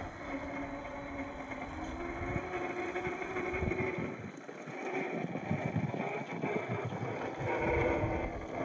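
Electric RC scale crawler driving on a rough trail: its motor and gearbox whine rises and falls with the throttle, over crunching and crackling of the tires on dirt and rocks.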